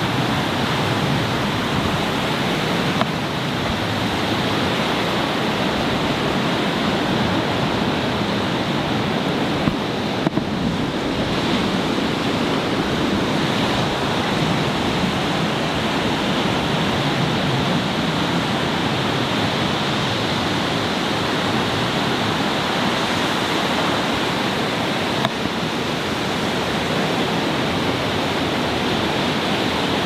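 Heavy storm surf breaking on a rocky shore in strong wind: a dense, steady rush of water and wind.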